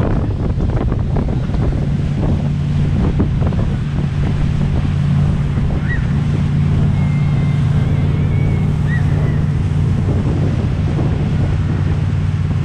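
Wind buffeting the microphone over the steady drone of a motorboat engine and rushing water, as the boat tows the tube at speed.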